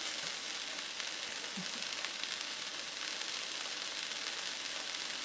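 Ahi tuna steaks searing in a hot frying pan, a steady sizzle.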